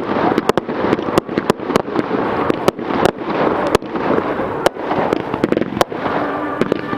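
Fireworks going off in quick succession: a dense run of sharp bangs and cracks, several a second, over a continuous crackle.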